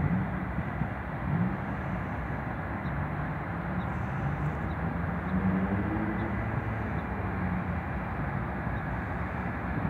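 Low, steady drone of a river towboat's diesel engines pushing barges, its pitch drifting up and down slightly partway through, over a constant outdoor hiss.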